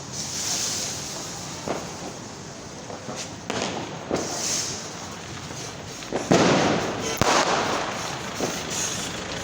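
Diwali firecrackers going off: a run of scattered bangs and pops, the loudest a longer crackling burst about six seconds in, with bursts of hissing between them.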